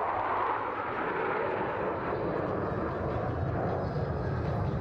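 Four F-16 Fighting Falcon fighter jets flying past in close formation: a broad, steady jet roar, loudest in the first second or so and easing slightly after.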